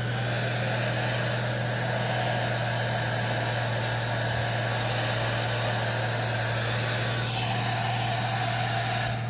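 KONKA hand-held hair dryer running, a steady rush of blown air with a strip of paper fluttering in the airflow, over a steady low hum. The tone of the airflow shifts slightly about seven seconds in, and the dryer cuts off just before the end.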